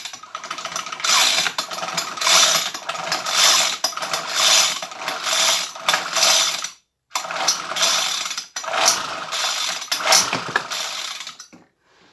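Repeated rasping, ratchet-like mechanical strokes, about one a second with a short break near the middle, from hand work on a Homelite hedge trimmer's opened two-stroke engine.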